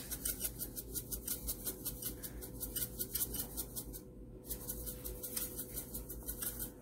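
Pepper grinder being twisted by hand: a steady run of quick gritty clicks, about five or six a second, with a short pause about four seconds in.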